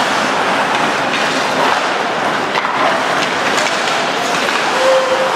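Ice hockey play on the rink: skate blades scraping on the ice, with scattered clacks of sticks and puck, and a voice calling out near the end.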